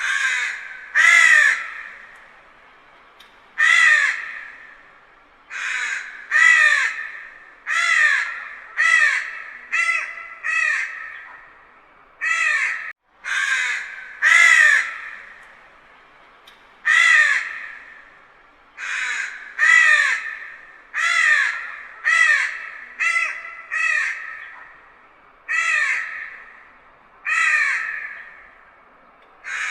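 Crow cawing: about two dozen harsh caws, singly and in quick pairs, each trailing off in an echo.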